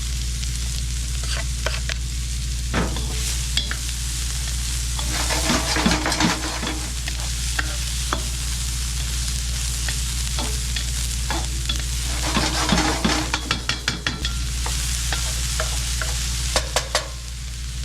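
Garlic, onions and bamboo shoots sizzling in hot peanut oil in a wok, stirred with a spatula that scrapes and clatters against the wok in spells about five seconds in, about twelve seconds in, and again near the end. A steady low hum runs underneath.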